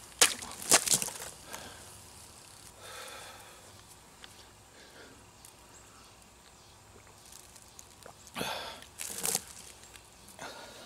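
A large knife slashing through a plastic water bottle: two sharp cracks about half a second apart, about a quarter second in. Near the end come two more noisy bursts, softer than the cracks.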